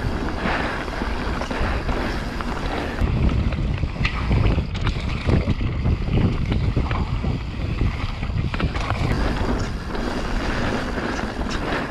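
Wind buffeting the microphone and knobby mountain-bike tyres rolling over a dirt trail at speed, with short clicks and rattles from the bike's chain and frame. The low rumble gets heavier in the middle, over rougher ground and jumps.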